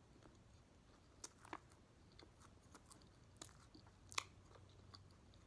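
Faint, close-up chewing of food, with a few sharp wet mouth clicks.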